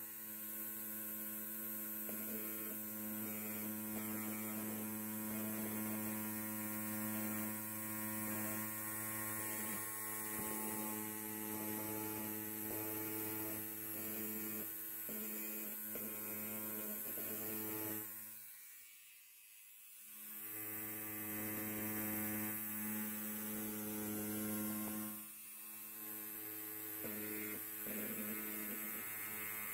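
Electric hair clippers running with a steady buzzing hum. The buzz dies away about eighteen seconds in, starts again two seconds later, and dips once more briefly near the end.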